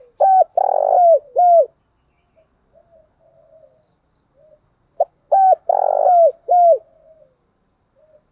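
Spotted dove calling: two loud cooing phrases about five seconds apart, each three or four coos with falling ends. Softer, shorter coos sound in between.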